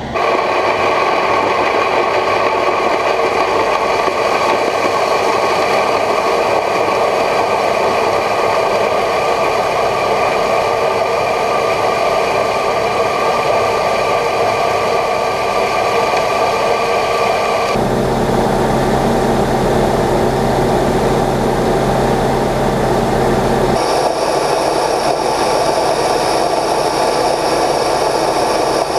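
A John Deere 9500 combine harvester's machinery running steadily. The sound changes abruptly about two-thirds of the way in and again a few seconds later.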